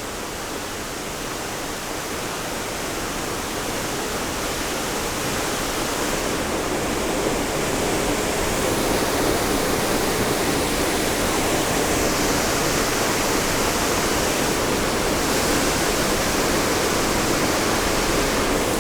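Steady rushing roar of Middle North Falls, a large waterfall, growing a little louder over the first several seconds and then holding steady.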